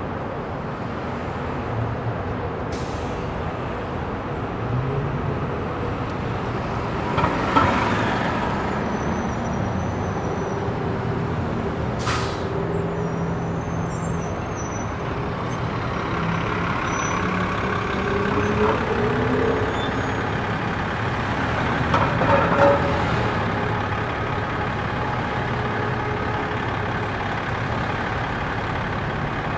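City street traffic: a steady rumble of engines idling and pulling away, with engine pitch rising and falling. There are a few short, sharp hisses, about 3 and 12 seconds in, and it swells louder as vehicles pass about 8 and 22 seconds in.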